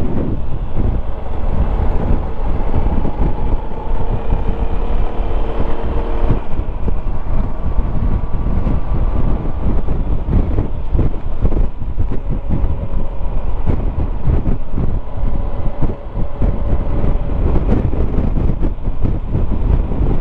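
Wind rumbling and buffeting against a helmet-mounted microphone while riding a 2021 Yamaha XMAX 300 scooter, with the scooter's single-cylinder engine droning faintly underneath. The engine's pitch shifts in the first few seconds, then holds fairly steady.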